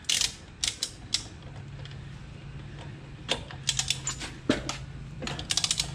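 Socket ratchet clicking in quick runs as a lug nut is tightened on a steel wheel, with a few separate knocks of the socket and handle.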